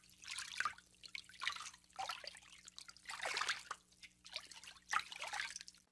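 Shallow water splashing and trickling faintly in irregular short bursts as a corgi wades through it.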